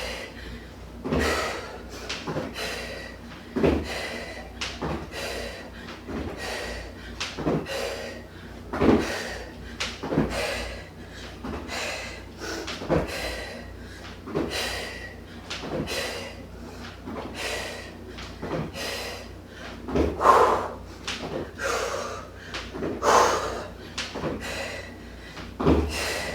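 Feet landing on the floor in repeated side-to-side jumps, about one landing every second and a half, with breathing between the landings.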